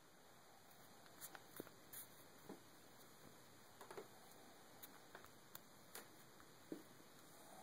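Near silence: faint room hiss with scattered small clicks and ticks at irregular times.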